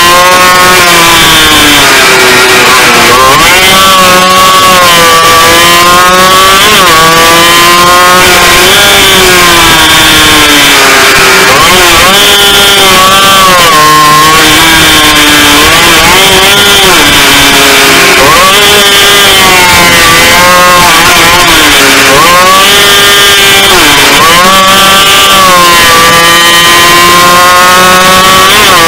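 Small racing motorcycle engine heard onboard, loud, revving hard lap after lap: its pitch climbs through each gear and drops sharply at each upshift, then sweeps down as it slows for corners and climbs again on the way out.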